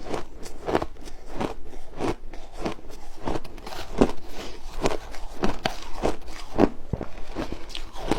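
Ice being bitten and chewed: a steady run of loud, crisp crunches, about two to three a second.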